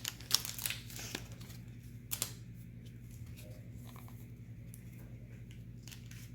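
Crinkling plastic trading-card packaging being handled, busiest in the first second or so, then a few scattered light clicks. A low steady hum runs underneath.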